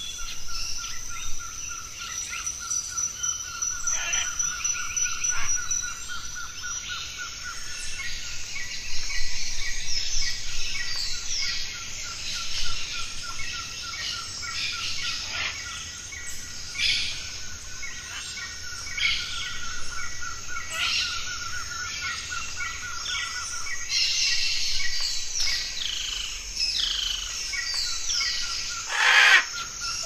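Tropical forest birds calling and chirping over a steady high insect whine, with a rapid, even trill repeated several times for a few seconds at a stretch, and one louder call just before the end.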